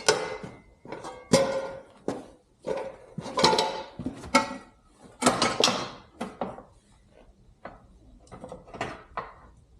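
Metal parts and tools clanking and scraping as a motorcycle rear wheel assembly is worked loose: irregular knocks and clinks with brief ringing, thinning out in the last few seconds.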